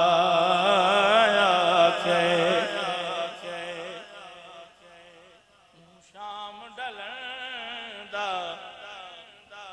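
A man's voice singing a naat unaccompanied, holding one long note with a wavering pitch that fades away about three to four seconds in. After a short lull, softer sung phrases come back in.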